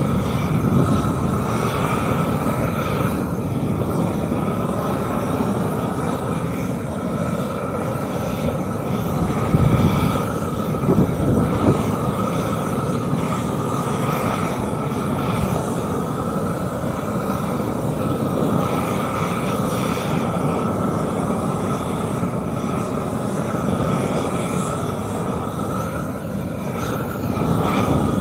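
A machine's engine running steadily under a constant high whine.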